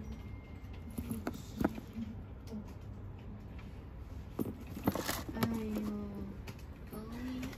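Handling noise from sneakers in a paper-lined shoebox: scattered taps, clicks and light rustles. A brief low drawn-out tone comes about five and a half seconds in, and a shorter one near the end.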